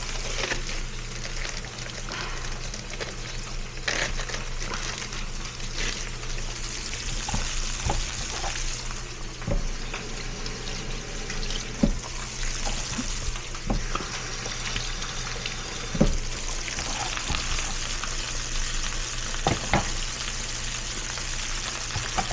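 Ground beef frying in a pan, with a steady sizzle and scattered knocks of a utensil stirring it against the pan.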